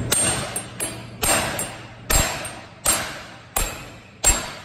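Hand hammer striking a laser-welded 3 mm stainless steel square-tube joint, about nine blows. The first few are lighter and quicker, then heavier blows come roughly every 0.7 s, each with a short metallic ring. The weld is being hammered over to test its strength.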